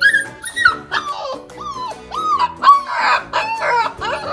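Husky howling and yowling in a quick run of short calls that slide up and down in pitch, loud, over background music.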